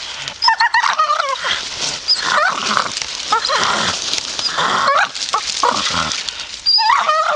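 Staffordshire bull terrier vocalizing in a run of short whines and yips that bend up and down in pitch, in several bursts with brief pauses between.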